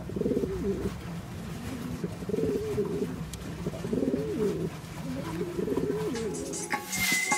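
Domestic pigeon cooing: four rolling coos, each rising and falling, about one every two seconds.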